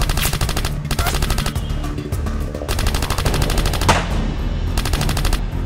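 Rapid automatic gunfire in long bursts with short breaks, over background music.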